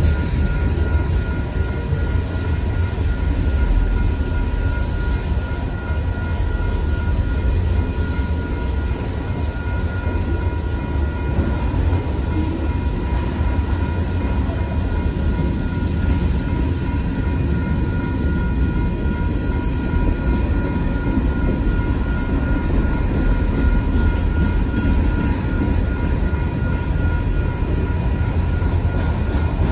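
Mixed freight train cars rolling past at close range: a steady heavy rumble and rattle of wheels on rail, with faint steady high tones riding over it.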